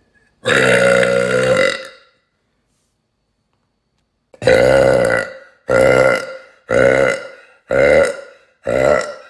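A woman burping loudly: one long burp about half a second in, then after a pause a quick run of five shorter burps, about one a second.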